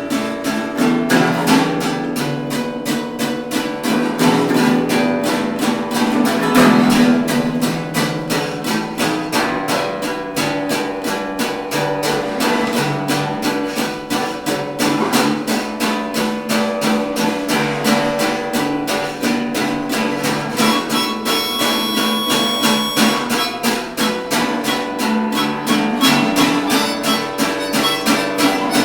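Acoustic blues band playing an instrumental: strummed acoustic guitar and ukulele in a steady, fast rhythm over acoustic bass.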